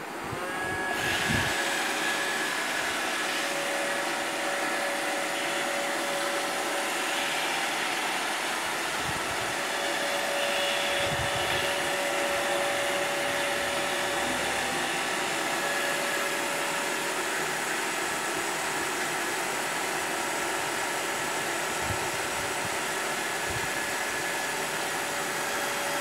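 iRobot Roomba robot vacuum running as it drives to its charging dock. Its motor and brushes make a steady whirring hiss with a constant whine. It starts up about a second in and cuts off at the very end.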